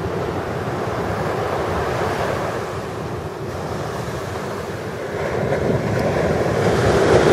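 Small ocean waves breaking and washing up a sandy beach, mixed with wind buffeting the microphone; the sound grows louder over the last couple of seconds.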